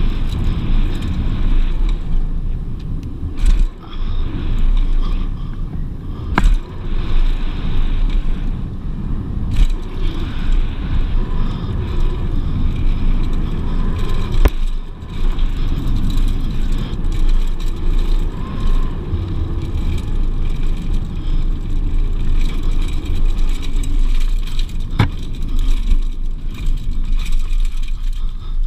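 Mountain bike running fast down a dirt downhill trail: tyre and trail rumble with wind rushing on the camera's microphone, and the bike rattling over the bumps. Three sharp knocks come about a quarter, half and most of the way through.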